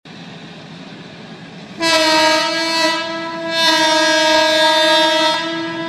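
Train horn sounding one long, steady blast that starts about two seconds in, dips briefly and swells again, over a low rumble.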